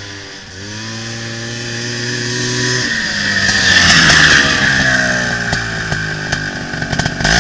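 Honda Odyssey FL350 dune buggy's engine pulling hard as the buggy drives up and passes close by, loudest about four seconds in. The engine pitch then drops as it slows and turns across the grass, with a few sharp knocks near the end.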